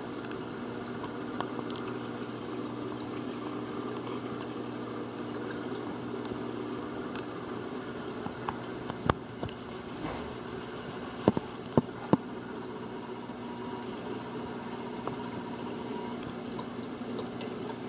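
Steady hum and water movement of a nano reef aquarium's circulation pump and filtration, with a few short sharp clicks past the middle.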